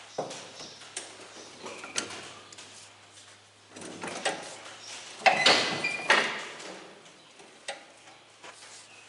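Scattered knocks and clanks with a louder scraping, rattling stretch about five to six seconds in, from hand work on a small square baler.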